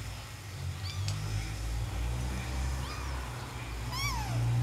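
Kitten mewing: a few short high calls, the clearest a falling mew about four seconds in, over a steady low rumble.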